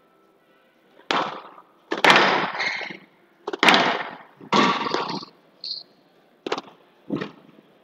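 Squash rally: sharp cracks of racket strikes and the ball hitting the court walls, about six loud hits at uneven intervals, each with a short echoing ring. A brief high squeak sounds between hits.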